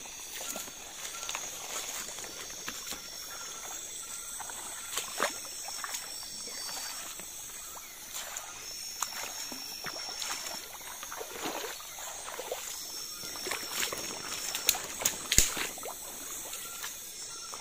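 Water sloshing and splashing as people wade through a shallow river, over a steady high-pitched chorus of night insects. A sharp knock about fifteen seconds in is the loudest sound.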